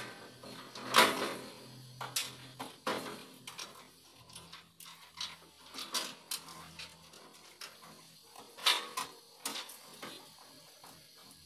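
Irregular clicks, knocks and rattles of heavy cables and metal parts being handled inside a steel electrical panel while crimp-lugged cables are fitted to the line side of a breaker, with the loudest knock about a second in and another cluster near the end.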